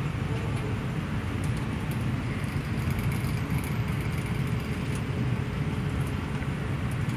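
Steady rumble of a moving express passenger train heard from inside the coach: wheels and running gear on the rails.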